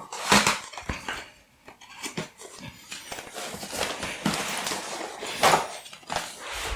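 Handling noise: irregular clacks and knocks with stretches of rustling, as plastic floppy disks and a soft carrying bag are handled and packed.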